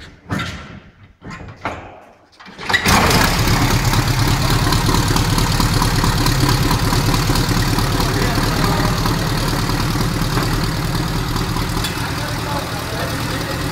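An old car's engine catches suddenly about three seconds in and then runs steadily and loudly at idle.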